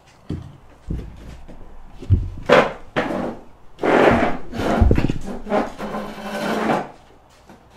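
Handling noise as people get up from a table: a few knocks and bumps, then spells of scraping and rubbing as things are moved over the table and chairs are shifted.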